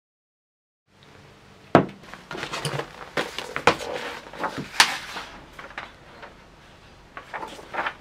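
A book and papers handled on a wooden desk: a workbook set down and opened out, with several sharp knocks, clicks and page rustles. It starts after about a second of silence, and the loudest knocks come about two seconds in and again near five seconds.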